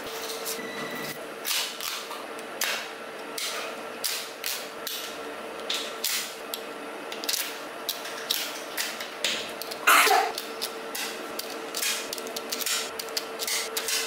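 Small magnetic balls clicking and snapping against each other as they are laid into rows and pressed into place; irregular sharp clicks, the loudest about ten seconds in.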